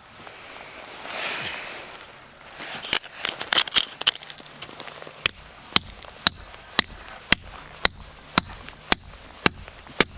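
Sharp, evenly spaced hammer strikes, about two a second, beginning about five seconds in, after a quick flurry of lighter knocks: a stake being driven into frozen, icy ground.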